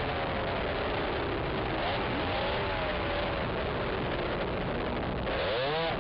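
Racing quad (ATV) engine revving up and down as it is ridden along a bumpy dirt trail, heard loud and close from the camera's own quad. The pitch rises and falls over and over, with a quick sharp rev and drop about five seconds in.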